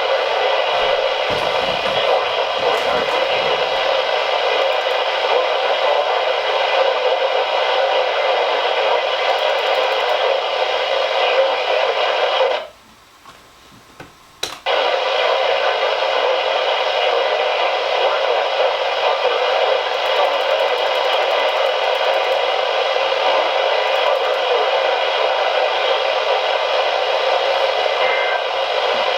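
Weather radio receiver hissing with steady FM static between broadcasts. The hiss cuts out for about two seconds near the middle, then comes back.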